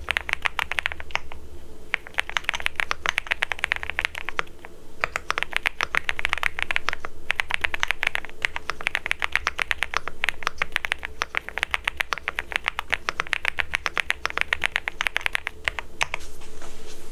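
Rainy75 mechanical keyboard with Midnight switches being typed on quickly in bursts of rapid keystrokes, with short pauses between runs.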